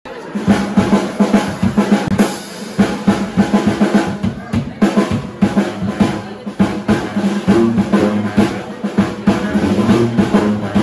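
A New Orleans-style brass band's drum kit playing a busy, fast groove of snare and bass drum hits, with low sustained brass notes joining from about halfway through.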